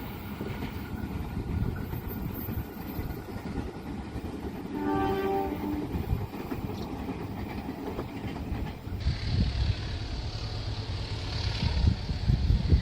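A train running past with a steady rumble, and a single horn blast of about a second about five seconds in. Near the end the low rumble grows louder and more uneven.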